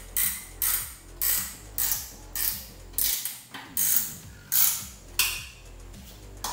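Ratchet wrench clicking through short back-and-forth strokes, about two a second, as nuts are run down onto the plenum's studs; the strokes stop about five seconds in.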